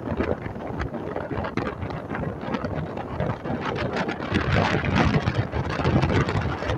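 Wind buffeting the microphone with road noise from a moving vehicle, gusting louder in the second half.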